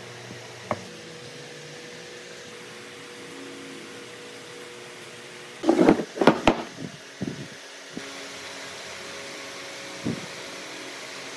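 Solid wooden blocks knocked against each other and set down on a wooden workbench: a single tap near the start, a quick cluster of loud knocks about halfway through, and one more knock near the end, over a steady mechanical hum.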